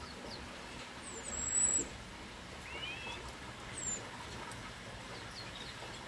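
Small finches in an aviary giving a few short, high chirps and call notes, the loudest about a second and a half in.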